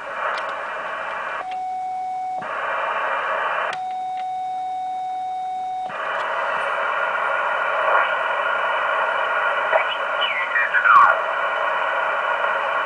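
Yaesu HF transceiver's receiver hiss through its speaker on the 20 m band. The hiss is broken twice by a steady beep, about one second and then about two seconds long, during which the hiss drops out: the monitor tone of a carrier keyed so the automatic magnetic loop tuner can tune. Later a whistle falls in pitch as the VFO dial is turned across a signal.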